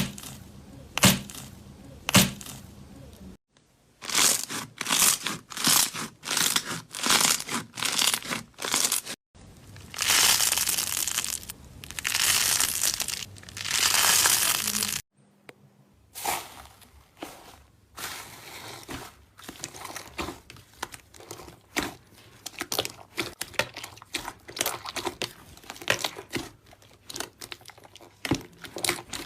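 Slime being squeezed and worked by hand in a run of short clips, crinkling and crackling. First come a few sharp clicks, then squeezes about once a second, then a long unbroken crinkle, and from about the middle on, many quick small crackles.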